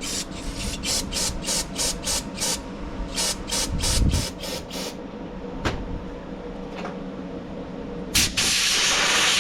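Pressurized nozzle blasting through a clogged carburetor's passages in short hissing bursts, about four a second, then a long steady hiss starting near the end.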